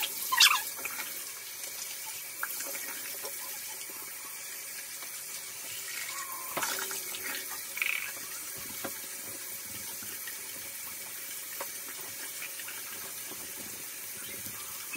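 Tap running steadily into a sink while dye-covered gloves are rinsed under it, with a few brief knocks and rubs.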